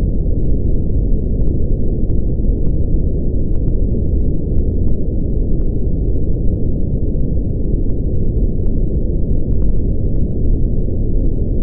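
Brown noise (red noise): a steady, deep rumbling hiss with its energy in the low end and nothing bright above. It is a generated signal whose power falls with the square of the frequency.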